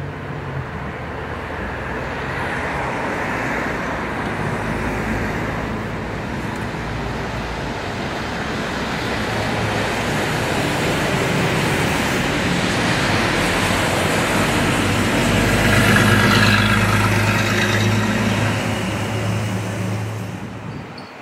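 Sydney double-deck electric suburban train passing close by: wheels on rail with a low steady hum, the noise building to its loudest about sixteen seconds in, then dropping away sharply near the end.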